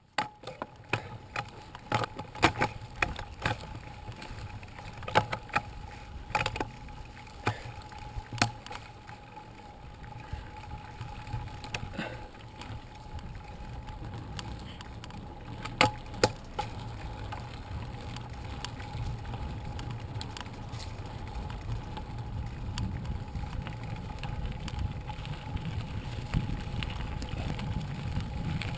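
Mountain bike being ridden, heard from a camera on the handlebars: sharp rattles and clacks of the bike jolting over bumps, over a low rumble of tyres that grows louder in the last several seconds.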